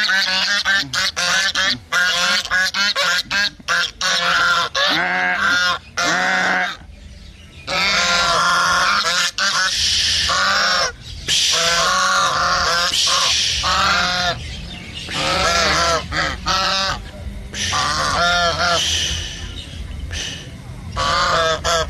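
Several white domestic geese honking loudly and repeatedly: a quick run of short honks at first, then longer honks in groups with brief pauses between them.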